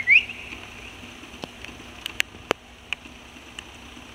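A short rising herding whistle from the handler, directing the dog at the very start. It is followed by a few scattered faint sharp clicks over a steady faint hiss.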